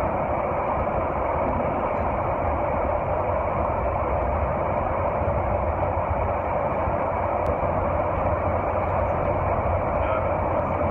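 Steady cabin noise inside a Boeing 737-800 airliner in flight: an even rush of air and engine noise with a low rumble underneath.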